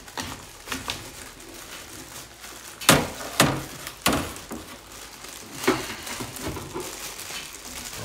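Plastic bag crinkling around an NZXT Kraken X52 AIO cooler's pump head and tubing as they are fed through a PC case. A few sharp knocks and clatters come through it, the loudest about three seconds in.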